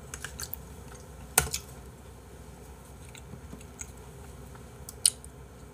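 A few short, sharp clicks, the loudest about a second and a half in and another near the end, over a quiet steady room background.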